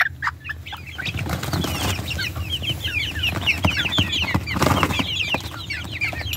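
A flock of young chickens peeping, many short, high chirps overlapping in quick succession, with a brief flurry of wings or rustling about four and a half seconds in.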